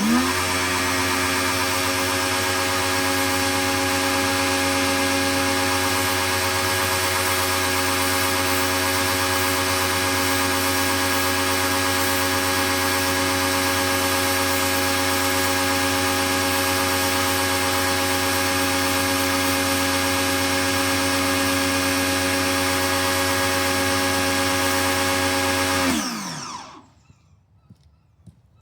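Pro-Kleen 1600 electric pressure washer motor and pump starting with a quick rise in pitch, running at a steady whine for about 26 seconds, then spinning down and stopping.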